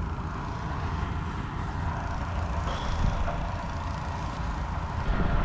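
Wind buffeting the microphone outdoors: a steady low rumble with hiss and no distinct events.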